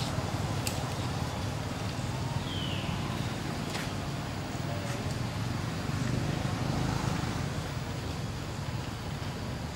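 Steady low outdoor rumble, with a few faint ticks and one short, high falling chirp about two and a half seconds in.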